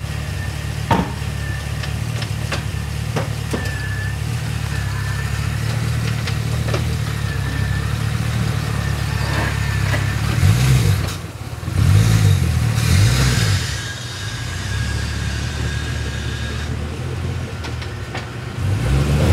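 The 6.2-litre LS3 V8 of a 2012 Camaro SS idles steadily through a Borla S-Type cat-back exhaust. About halfway through it is blipped three times in quick succession, each rev a short growl that rises and falls before it settles back to idle, and it revs once more near the end as the car pulls away.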